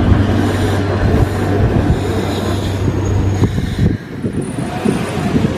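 Keikyu train running past over the level crossing, its steady low rumble dropping away about four seconds in; wind then buffets the microphone.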